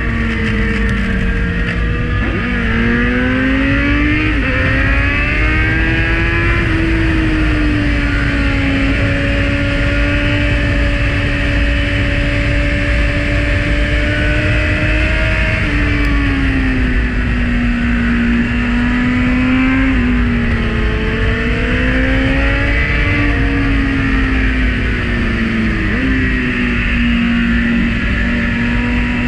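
Kawasaki Z900's inline-four engine under way at speed, revs falling and climbing again several times through the bends and held fairly steady for a stretch in the middle. Wind rushes steadily over the microphone throughout.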